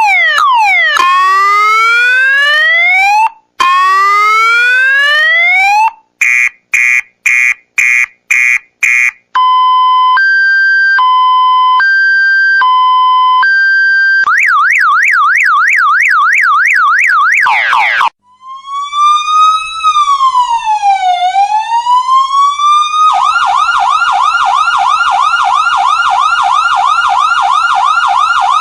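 A run of electronic siren sound effects, one pattern after another: two rising whoops, a burst of about six quick beeps, a two-tone hi-lo alternating every second or so, a fast yelp, one slow wail rising and falling, then a fast steady warble to the end.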